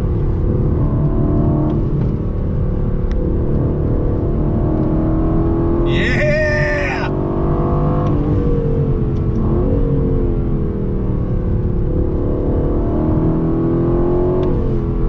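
The 2020 Aston Martin Vantage's AMG-derived 4.0-litre twin-turbo V8, heard from inside the cabin, accelerating hard through the gears. Its pitch climbs and drops back at each shift, with a brief higher-pitched sound about six seconds in.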